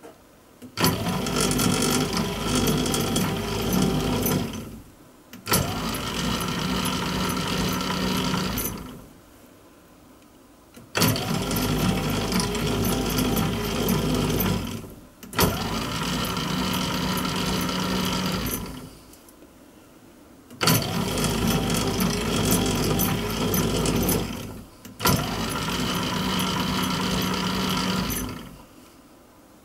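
Old lathe running under power as the carriage traverses along a brass helical gear blank. Each run starts suddenly, runs for about three seconds and winds down as the limit switch cuts the motor. This happens six times, in three pairs with short pauses between.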